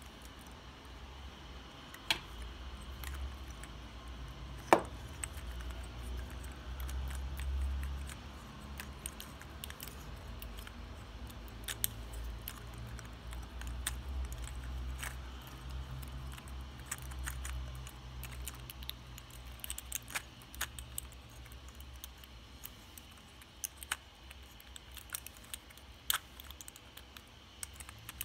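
Handling noise: scattered small clicks and taps as hands turn a hard plastic 3D-printed model close to the microphone, over a low rumble from the phone being held. The sharpest click comes about five seconds in.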